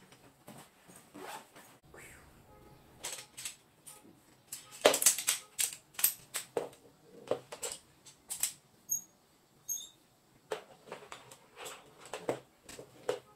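Jointed metal poles of a folding camping-chair frame knocking and clicking together as they are slotted into their hubs. The loudest clacks come about five to six seconds in, with a brief metallic ring near the middle.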